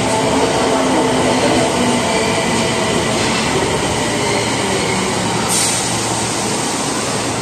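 Osaka Metro Tanimachi Line subway train running out past the platform, a loud steady rumble of wheels and running gear. Faint motor tones die away about two seconds in, and there is a short high hiss about five and a half seconds in.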